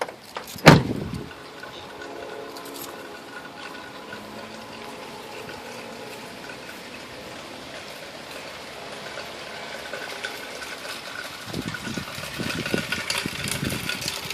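A single loud thump about a second in, then the steady hiss of falling rain, with irregular louder knocks and taps near the end.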